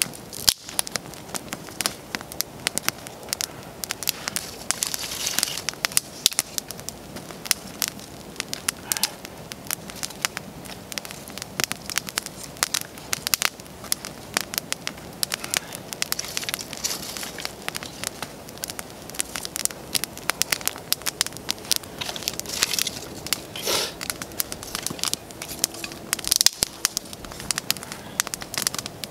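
Small wood campfire of split kindling crackling, with irregular sharp snaps all through and a louder snap near the end.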